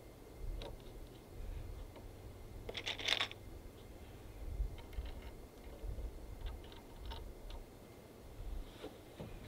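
Scattered light clicks and a brief clattering rattle about three seconds in, from small hardware being handled at a worktable; a low rumble underneath.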